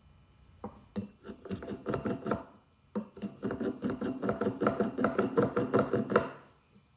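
Japanese hand plane scraping across the edge of a hardwood block in rapid short strokes: a run of about two seconds, a brief pause, then a longer run of about three seconds.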